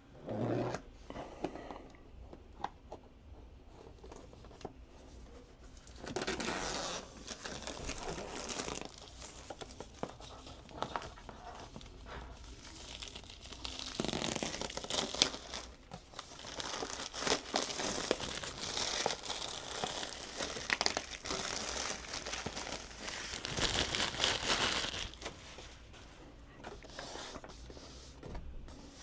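Clear plastic shrink wrap crinkling and tearing as it is peeled off a cardboard box by hand, in several bursts, the longest through the middle.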